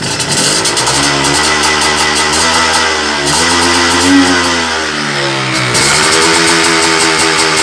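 MZ ETZ 301's single-cylinder two-stroke engine, freshly rebuilt and only just started for the first time, revving under light throttle. The revs climb to a peak about four seconds in, drop back briefly around five seconds, then rise again.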